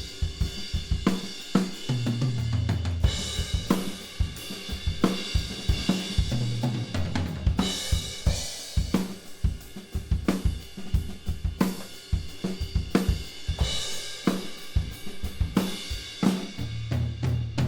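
Playback of a studio recording of a full acoustic drum kit being played in a steady groove: kick, snare, hi-hat and cymbals. It is heard through the close microphones blended with a mid-side room-microphone pair.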